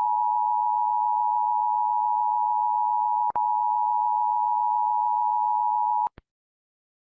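Steady two-pitch alert tone of the Emergency Alert System attention-signal kind, held for about six seconds with a brief click and dropout about three seconds in, then cut off suddenly.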